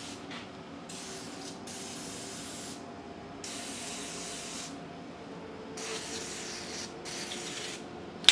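Fluid Film aerosol can spraying lubricant onto a washing machine's suspension rods, in about six short hissing bursts with brief pauses between them.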